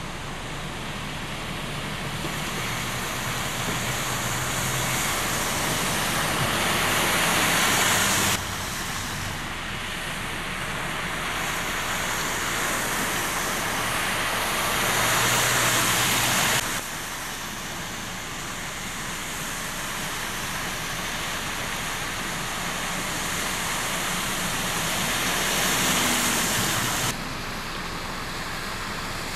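Trucks ploughing through deep floodwater on a street, sending up heavy spray: a rushing splash with a low engine hum under it. The rush swells as each truck approaches and cuts off suddenly, three times over.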